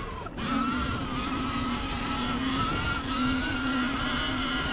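Surron Ultra Bee electric dirt bike's motor whining steadily while riding, over a dense rumble of wind and trail noise, with a brief dropout just after the start.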